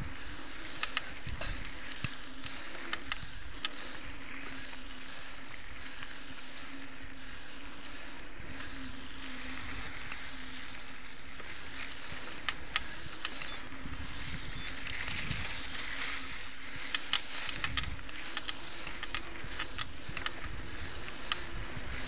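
Mountain bike riding fast over a dirt singletrack: steady tyre and drivetrain noise with frequent clicks and rattles as the bike hits bumps, and a few low gusts of wind on the microphone in the second half.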